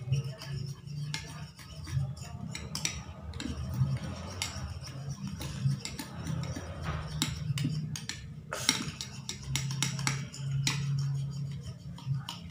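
Metal spoon clinking and scraping against a ceramic bowl in irregular taps while stirring glue slime that is starting to clump.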